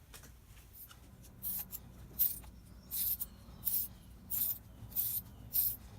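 Rhythmic scraping strokes, about one every 0.7 seconds, starting about a second and a half in, over a faint low hum.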